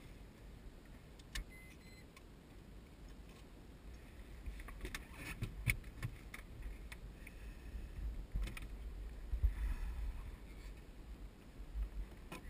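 Scattered clicks, knocks and rattles as the canopy frame of a Turner T40 light aircraft is handled and swung open, over a steady low rumble. They come mostly from about four seconds in.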